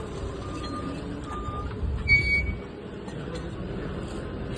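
A vehicle's reversing beeper sounding in short, evenly spaced beeps over a low engine running. About two seconds in comes a short, loud high squeal.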